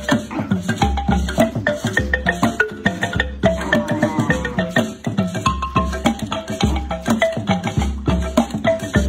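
Background music: a quick, clicking percussion beat with short pitched notes over deep bass notes.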